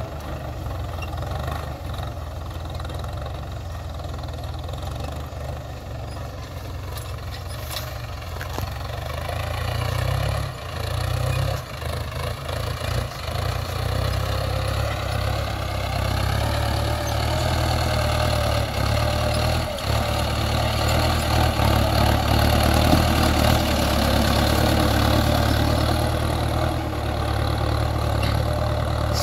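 Farm tractor's diesel engine running steadily as it pulls a tine cultivator through the soil. Its pitch wavers slightly, and it grows louder in the second half as the tractor comes closer.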